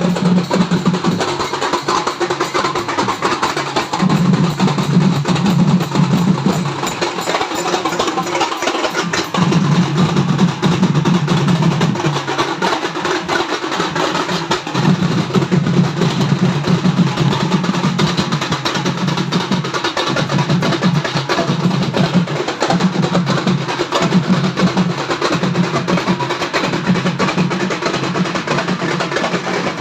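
Loud, drum-heavy music with a deep drum line that comes in repeated stretches of a second or two over a dense, busy mix.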